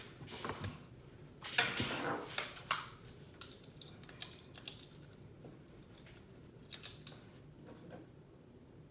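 Small clicks and scrapes of multimeter test probes being handled and pressed against a circuit board for an in-circuit diode test, with a short scratchy stretch about two seconds in.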